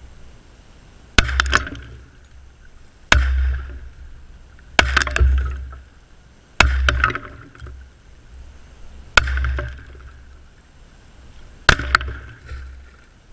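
Six shots from a Glock 20 pistol firing hot 10mm Auto hand loads, unevenly spaced about one and a half to two and a half seconds apart, each with a brief ringing tail. The bullets strike gallon plastic water jugs close to the microphone and burst them.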